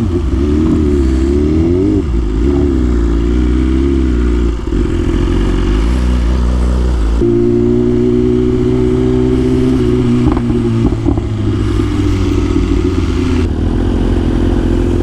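Sport motorcycle engines idling, the pitch wavering up and down, then changing suddenly about seven seconds in to a steadier idle.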